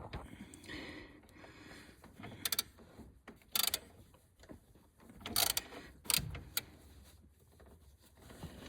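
Metal parts and hand tools clinking and scraping as the threaded cap and spring of a steering rack's bushing assembly are fitted by hand: a few separate sharp clicks, the loudest about five and a half seconds in.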